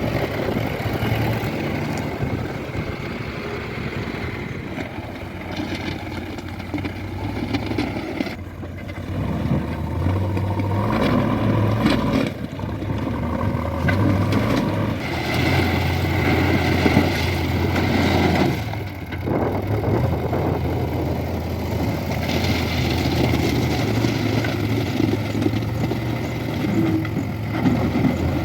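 Diesel engines of a backhoe loader and farm tractors running together, a steady low engine hum whose level rises and falls as the machines work.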